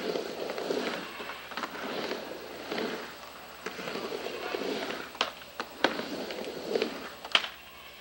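Skateboard wheels rolling back and forth across a wooden mini ramp, the rumble swelling with each pass, with several sharp clacks as the board and trucks strike the ramp's lip.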